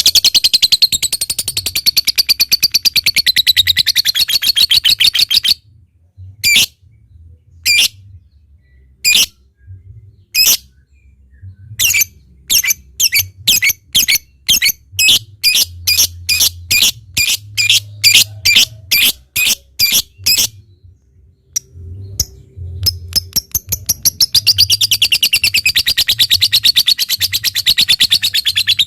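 Lovebird calling: a long, rapid, high chattering trill (ngekek), then a string of separate sharp chips ('ngetik', the typing call) that come closer together as they go. Another long chattering trill starts near the end.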